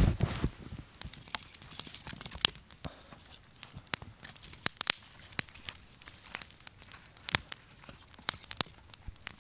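Wood campfire crackling, with frequent irregular sharp pops and snaps over a faint hiss. A low thump comes right at the start.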